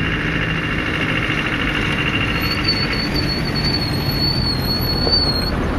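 Steady low rumble of an idling vehicle engine, with high, thin whining tones over it that shift higher about two seconds in.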